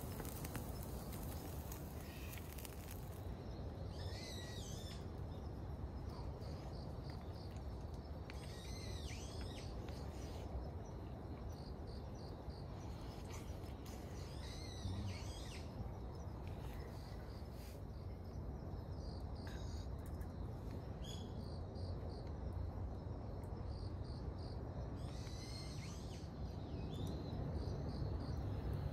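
Woodland ambience: a bird gives short calls about every five seconds over the steady chirping of insects and a low background rumble.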